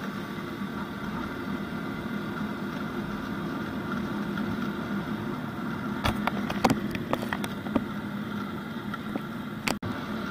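A TVS Ntorq 125 scooter's single-cylinder engine running steadily under the rider as the scooter picks up speed. A cluster of sharp clicks and knocks comes about six seconds in.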